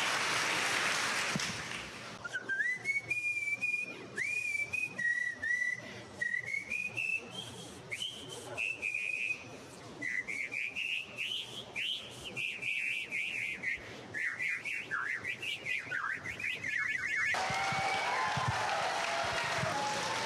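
A girl whistling a tune by mouth, in quick gliding notes that rise and fall, ending in a rapid trill. Applause fades out as she begins, and applause breaks out again when the whistling stops near the end.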